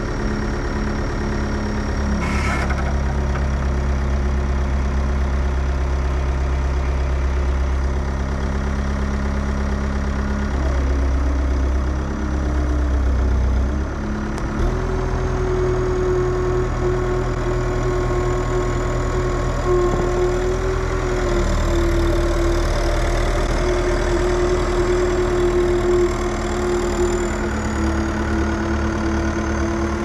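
Caterpillar 246C skid steer's diesel engine running steadily while it works its pallet forks under and lifts a stack of lumber, its pitch shifting a few times as the load and engine speed change. A single sharp knock sounds about two and a half seconds in.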